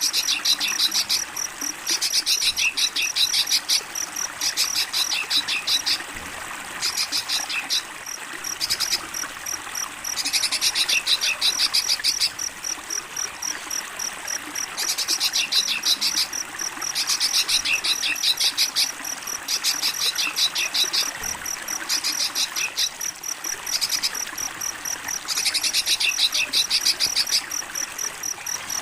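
Crickets chirping in repeated bouts of rapid, evenly spaced high-pitched pulses, each bout lasting a second or two with short pauses between. Underneath is a steady trickle of running water.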